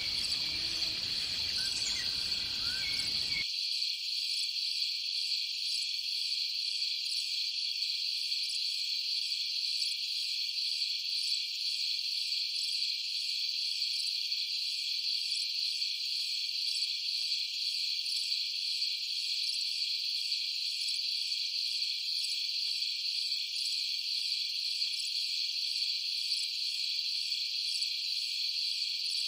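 Steady, high-pitched insect chorus with an even, fine trill. A faint low background under it cuts out about three seconds in, leaving only the high insect sound.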